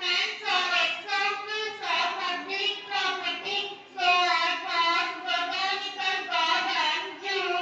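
A child singing into a handheld microphone, holding notes that bend from one pitch to the next with short breaks between phrases.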